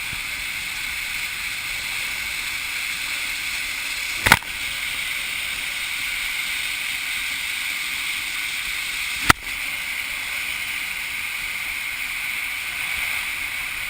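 Steady hiss of water rushing along a tube waterslide as the raft slides down the funnel slide, broken twice by a sharp knock about five seconds apart.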